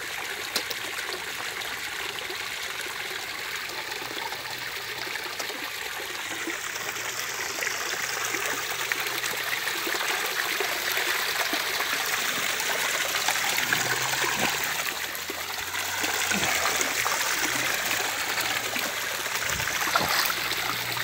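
Water trickling and splashing steadily into a garden fish pond.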